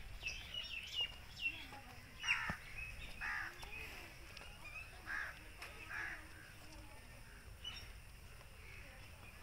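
Birds calling: quick chirps in the first second and a half, then four short harsh calls spread over the next few seconds.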